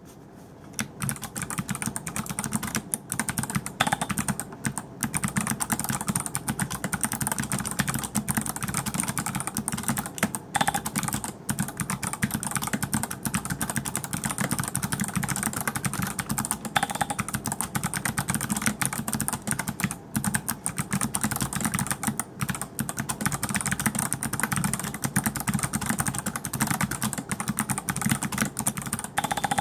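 Continuous fast typing on a mechanical keyboard with clicky Kailh BOX Navy switches: a dense, unbroken stream of sharp key clicks. The spacebar is stuffed with paper towel to quiet it.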